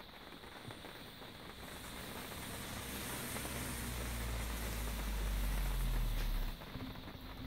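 A rushing noise with a low rumble that swells over a few seconds and then drops off suddenly about six and a half seconds in.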